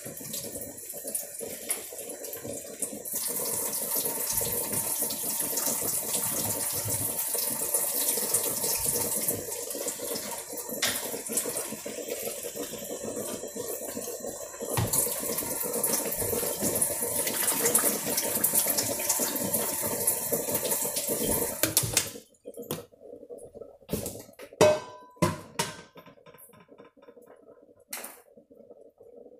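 Kitchen tap running into the sink, with the flow growing stronger twice before it is turned off about three-quarters of the way through. A few sharp clinks and knocks of dishes follow.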